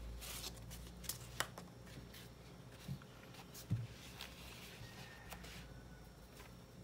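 Faint handling noises of a ball of cotton twine being turned and unwound by hand: light rustles and a few small clicks, with two soft thumps about three and four seconds in.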